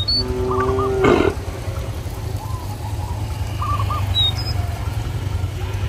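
A cow mooing once, a held low call about a second long that ends in a short breathy burst. Small birds chirp a few times, over a steady low rumble.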